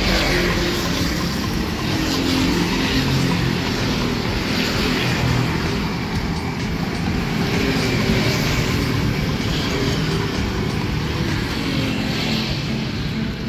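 Motorcycle traffic riding past on the road: small engines running and tyre noise, steady throughout.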